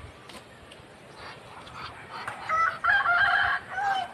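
A rooster crowing once, starting about two and a half seconds in and lasting about a second, followed by a short falling call near the end.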